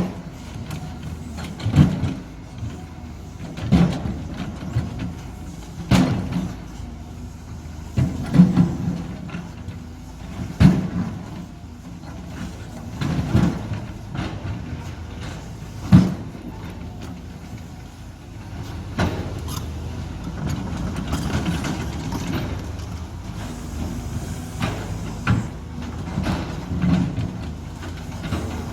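Cat 320 hydraulic excavator running steadily while its bucket knocks and scrapes stones into place on a slope, with a heavy clunk about every two seconds, busier and more continuous in the second half.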